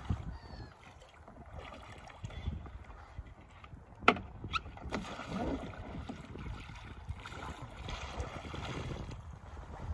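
Water sloshing and splashing around a sea kayak and its paddle as the paddler sculls and leans over into a roll, with one sharp knock about four seconds in.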